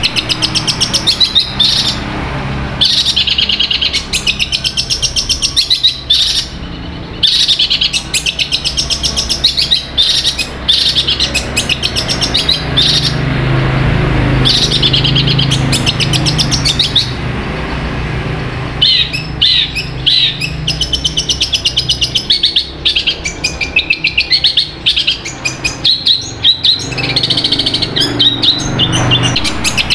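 Long-tailed shrike (cendet) singing: a fast, chattering song of rapid ticks and trills, delivered in bursts with short breaks, over a steady low hum.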